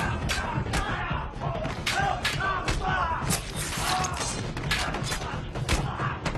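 Film fight sound effects: a rapid series of punches and blows landing, roughly two a second, with men grunting and shouting between the hits.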